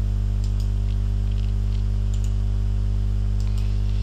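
Scattered computer mouse clicks, about nine short faint clicks, over a loud steady low hum with several overtones.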